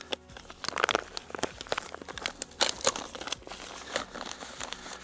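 Plastic groundbait bag crinkling and rustling in the hands as it is squeezed and shaken out into a bucket, a run of irregular crackles.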